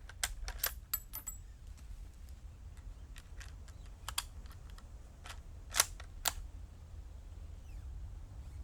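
Mosin-Nagant 91/30 bolt-action rifle being handled and its bolt worked to load a single round: a string of sharp metallic clicks and clacks. The two loudest come close together about six seconds in.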